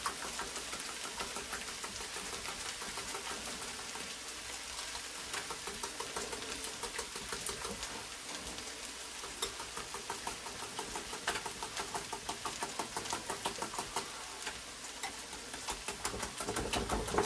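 Eggs and heavy cream being beaten by hand in a bowl: a quick, even clicking of the whisk against the bowl. It grows a little louder in the second half.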